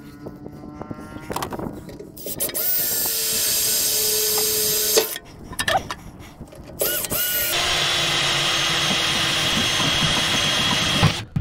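A power drill runs twice, for about two and a half seconds and then about four seconds, its motor winding up in pitch at the start of each run.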